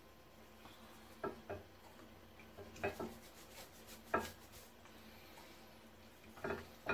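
Hands seasoning a raw whole chicken over a pan: quiet rubbing and handling, with about six soft knocks scattered through as the bird and hands bump the pan.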